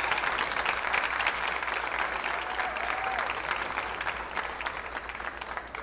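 Audience applauding, fading near the end.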